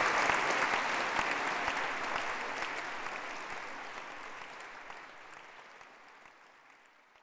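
Audience applauding, a dense patter of many hands clapping that fades steadily away to almost nothing near the end.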